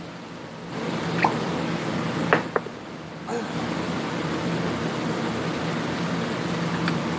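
Tequila poured from a bottle into a blender jar of ice and peach purée: a steady splashing pour starting about a second in, with a few light clinks.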